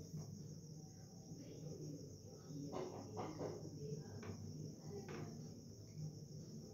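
Faint, steady high-pitched chirring, with a few soft taps about three seconds in and again near five seconds.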